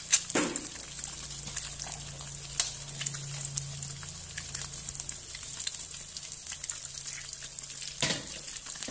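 Duck eggs frying in hot oil in a wok: a steady sizzle broken by scattered sharp pops and crackles.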